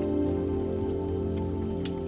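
Slow ambient music of long held notes over a soft patter of rain, with a few faint ticks scattered through it.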